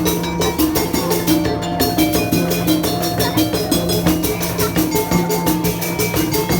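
Obrog street-music ensemble from Indramayu playing: rapid, steady drum strokes with a melody over a held low note.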